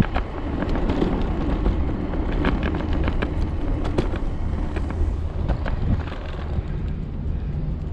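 Riding on an Okai ES400A electric scooter: a steady rumble of wind on the microphone and rolling noise, with frequent irregular sharp clicks and rattles.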